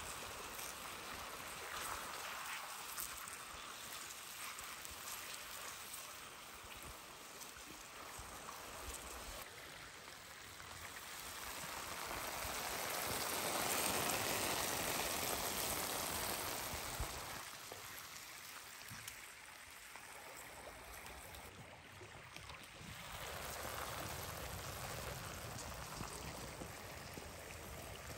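Hot oil sizzling and bubbling around sliced pieces frying in a cast-iron pan, a steady crackling hiss that swells loudest about halfway through.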